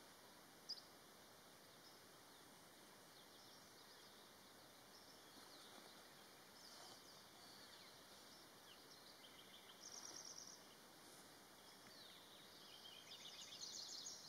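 Faint birdsong over quiet outdoor ambience: high chirps and short, rapid trills, with a sharp chirp about a second in, a trill near ten seconds and a cluster of trills near the end.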